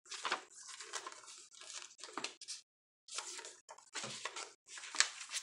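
Paper pages of a handmade junk journal being handled and turned: irregular rustling and crinkling with small taps, stopping for a moment about halfway.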